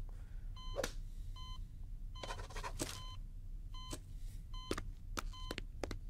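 Hospital patient monitor beeping steadily, one short beep about every 0.8 seconds, with a few short knocks in the second half.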